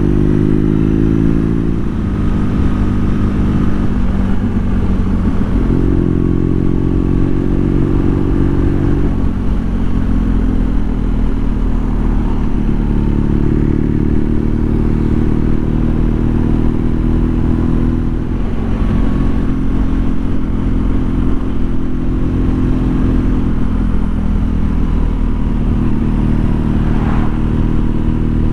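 BMW R nineT's 1170 cc boxer twin running on the road. Its engine note rises and falls in steps as it is opened up and shifted through the gears.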